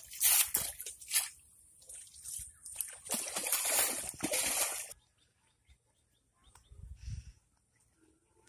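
Shallow muddy water splashing and sloshing in short, irregular bursts; it stops abruptly about five seconds in, leaving only a faint low rumble.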